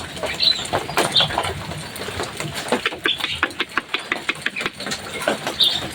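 Javan myna (jalak kebo) singing: a fast, harsh chatter of clicks and rattles, broken by short high whistled notes.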